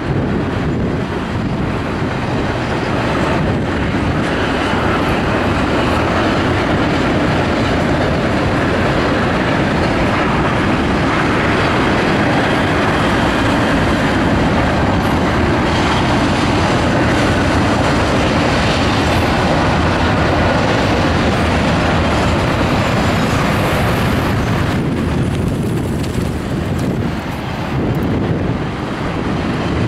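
Double-stack container cars of a CSX freight train rolling past, their wheels on the rails making a loud, steady noise that eases briefly near the end.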